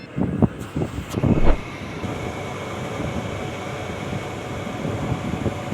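Package air-conditioner's belt-driven indoor blower running steadily with a faint high whine, after a few knocks in the first second and a half. Its drive belt is freshly greased, and the belt noise it had before is gone.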